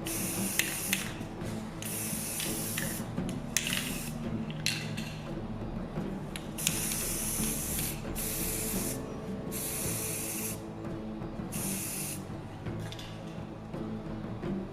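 Hissing spray in repeated bursts of about half a second to a second, with short gaps between them, over a faint steady low hum.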